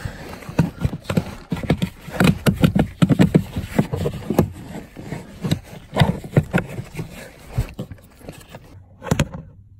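Irregular clicks, knocks and scraping of a replacement recirculation door being worked up through the opening into the HVAC box under a truck's dashboard, with one sharper knock near the end.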